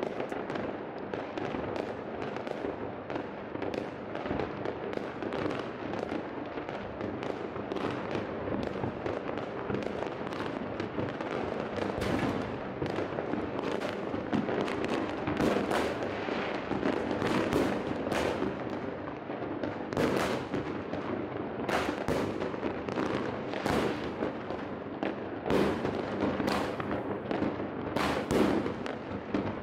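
Fireworks going off all over a city: a dense, continuous crackle of many distant rockets and firecrackers, with sharp single bangs coming more often in the second half.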